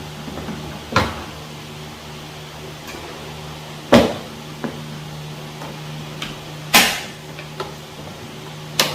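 The hard carrying case of a cordless hammer drill kit being handled: four separate knocks and clatters a few seconds apart, over a steady low hum.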